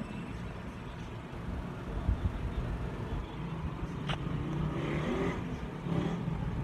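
Handling noise on a phone's microphone: a low rumble and uneven thumps as fingers and the fabric plush brush close to it, with a sharp click about four seconds in.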